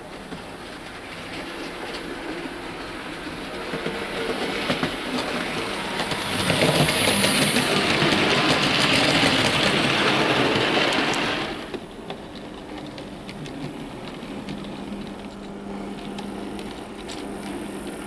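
OO gauge Dapol LSWR B4 model tank engine and its wagons running along model railway track: wheels clicking over the rail joints with a low motor hum. It grows louder as the train passes close by and drops away suddenly about two-thirds of the way through.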